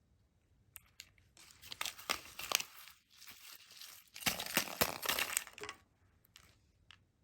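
Plastic candy wrapper being crinkled and torn open by hand, in two spells of crackling with sharp snaps, about a second and a half in and again about four seconds in.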